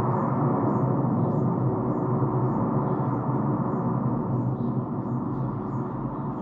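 Steady mechanical drone inside a moving cable car cabin, with faint light ticks about three times a second.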